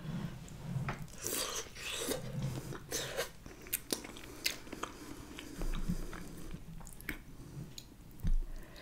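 Close-miked eating sounds: chewing, with sharp clicks and wet squelches as fingers pick sauce-coated mussels and corn out of a glass bowl. A low thump sounds near the end.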